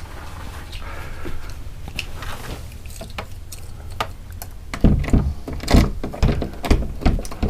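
A low steady rumble, then near the end a quick run of heavy thumps and sharp knocks from someone moving about aboard a boat.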